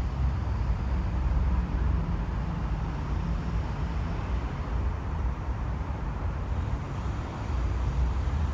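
Steady traffic noise from many cars driving on a multi-lane urban expressway: a continuous low rumble of tyres and engines that swells and eases slightly as vehicles pass.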